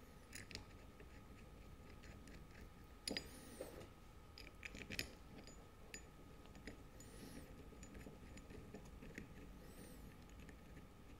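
Near silence with faint metal clicks and short scrapes of outboard water pump parts and bolts being handled during reassembly, the loudest clicks about three and five seconds in.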